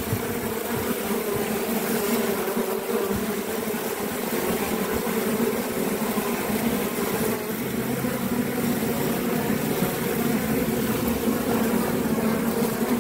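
Steady buzzing hum of honeybees at the hive entrance, many wings beating together, with a faint hiss beneath it.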